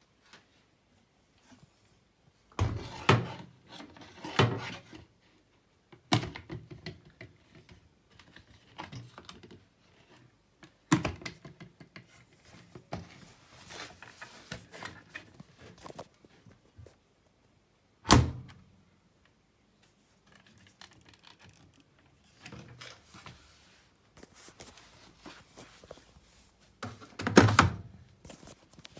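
Irregular thuds and knocks at the washing machine: sharp ones about three, six, eleven and eighteen seconds in and a louder cluster near the end, with softer scuffing and rustling between.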